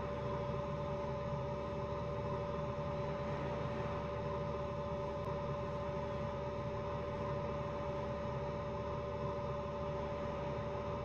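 Bell 47 helicopter running, heard as a steady droning hum with one constant tone.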